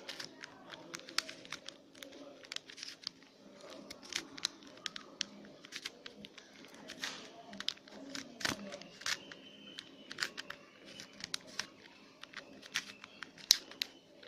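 A plastic 3x3 Rubik's cube being turned by hand, its layers clicking and rattling in quick, irregular runs of sharp clicks as the final last-layer formula is applied to finish the solve.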